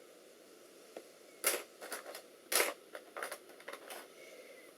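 Light clicks and clatter of small plastic-and-metal parts being handled: laptop memory modules picked through and set down, about eight short clicks, two of them louder, between one and four seconds in.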